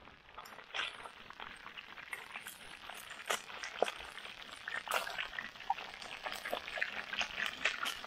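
Water trickling and splashing, with many small clicks and light knocks scattered through it.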